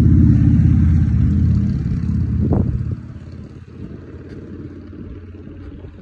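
Toyota Land Cruiser FJ62's 4.0-litre inline-six petrol engine idling steadily. It is loud for the first three seconds, then quieter, with a short knock about two and a half seconds in.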